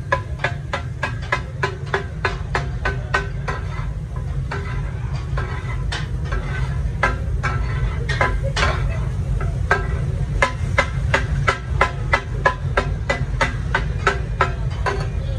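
Metal spatula blade striking a large iron tawa griddle again and again while chopping fish kata-kat style, each strike a short metallic clang, about three a second, thinning out for a while a few seconds in. A steady low rumble runs underneath.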